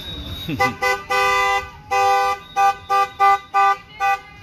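A car horn honking repeatedly: a run of blasts, two of them held about half a second each and the rest short toots.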